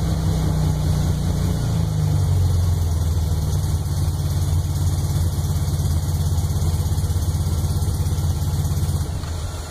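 Freshly rebuilt 1641 cc engine idling with a steady, fast-pulsing beat. The engine note drops away about nine seconds in, leaving a faint hiss.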